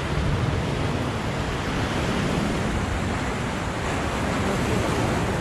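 Choppy sea surging and breaking against the shore rocks, a steady rushing wash, with wind buffeting the microphone.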